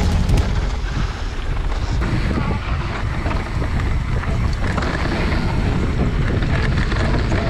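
Wind buffeting the microphone of a handlebar-mounted action camera on a mountain bike descending a dirt trail, with a steady low rumble from the tyres and bike over the rough ground.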